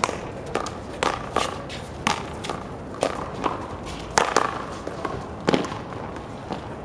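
Paddleball rally: a rubber ball smacked back and forth by paddles and slapping off a concrete handball wall, a dozen or so sharp smacks at uneven intervals of about half a second to a second, the last strong one about five and a half seconds in.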